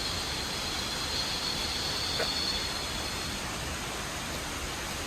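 Steady rushing noise of a large waterfall's falling water, with a faint high steady drone that fades about halfway through.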